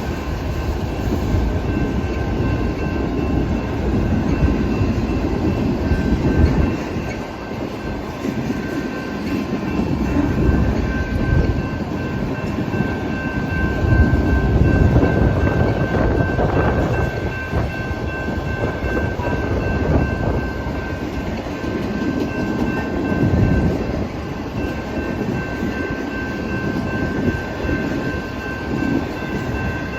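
Canadian Pacific manifest freight train's cars rolling past: a continuous rumble of wheels on rail that swells and eases, with a thin steady high squeal over it.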